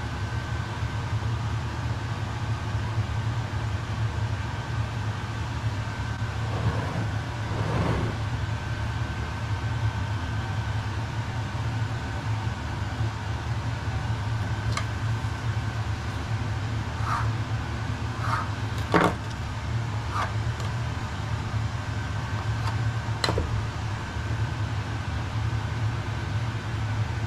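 A steady low mechanical hum, with a faint steady higher tone over it. A few light taps and knocks on the worktop as pastry is handled, several close together in the second half.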